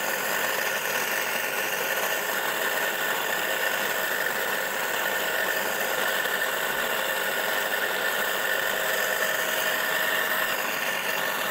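Single-phase electric motor of a walk-behind furrow cutter running steadily under load as it cuts through garden soil, a constant whine with a high hum in it.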